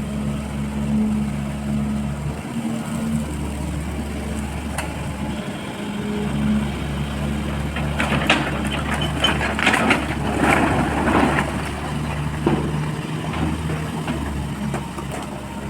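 Diesel engine of a long-boom Sany excavator running steadily, with a few seconds of louder, rough noise about halfway through.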